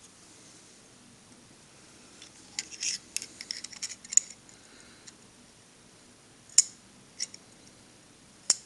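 Digital caliper handled and slid into place against a metal part on a steel rule: a quick run of sharp metallic clicks and scrapes, then a few separate single clicks as the jaws are set for a reading.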